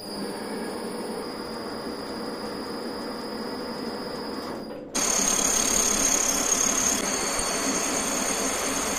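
Homemade lathe running, its three-phase motors on variable-frequency drives turning the chuck and lead screw with a steady mechanical hum. About five seconds in, the sound jumps louder and a high steady whine comes in.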